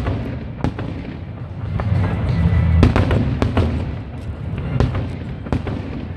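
Fireworks bursting in a show, sharp bangs and crackles every second or so over a low rumble, with the show's music playing along.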